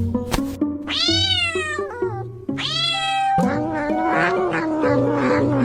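A cat meowing twice, each call falling in pitch, then a longer wavering yowl, over background music with a beat.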